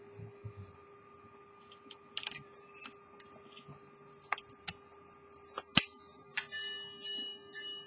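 Edmond Mathey-Tissot minute repeater pocket watch being handled, giving a few small clicks. About five and a half seconds in, the repeater slide is worked with a short rasp and a sharp click. The watch then starts chiming the time on its gongs, one ringing strike about every 0.6 s.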